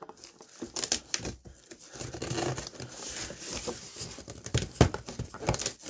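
Packing tape being pulled and torn off a cardboard parcel box, with irregular crackling, scraping and rustling of the cardboard flaps and one sharper crack near the end.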